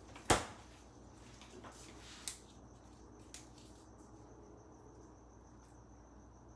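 A stainless side-by-side refrigerator door swung shut with a single sharp thud, followed by a few lighter knocks of things being handled on the counter. A faint, high, steady trill sits underneath.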